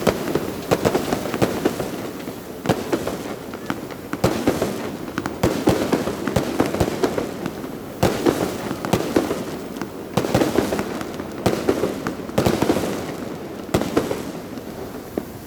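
A fireworks display going off: many rapid bangs and crackles, coming in waves every couple of seconds.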